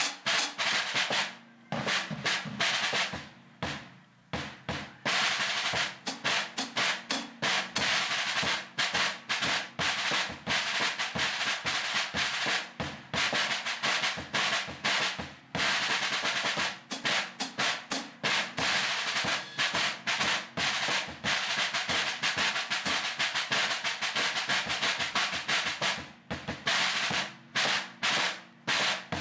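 Drum kit muted with Evans SoundOff rubber pads, played as a rudimental snare-drum study: fast stick strokes, rolls and flams, with short breaks about four seconds in and near the end. It sounds tinny, with flattened dynamics.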